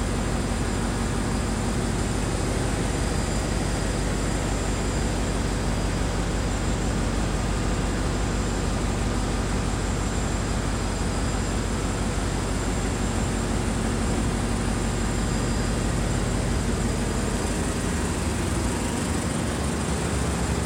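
Engine-room din of a container ship's slow-speed two-stroke main diesel engine running steadily: a constant loud mix of deep rumble and hiss, with faint steady high whistles over it. The deepest rumble thins slightly near the end.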